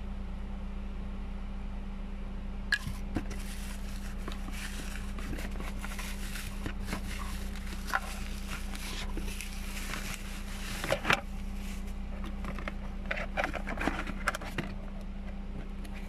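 Bubble wrap and plastic packaging crinkling and rustling as it is handled, starting about three seconds in, with a few sharp knocks of hard plastic parts, over a steady low hum.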